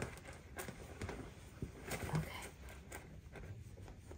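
Soft rustling and a few light taps as hands handle a large dog's bandaged leg and fur on a towel.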